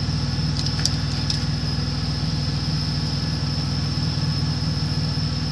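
A truck's engine idling steadily, heard inside the cab, with a constant high whine over the low hum. A few faint clicks about a second in.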